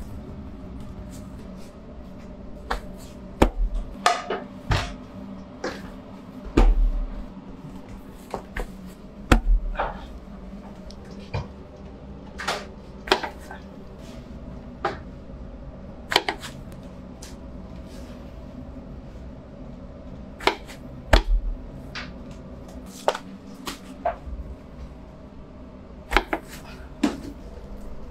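Flat rounds of bread dough being slapped and pressed onto the wall of a clay tandoor oven: irregular sharp knocks, a few of them with a dull thump, over a steady low hum.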